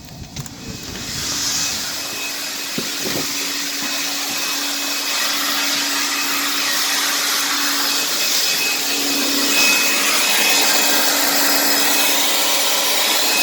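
Leaf blower coming up to speed over the first couple of seconds, then running steadily with a constant motor hum, blowing air through a dryer vent line clogged with lint.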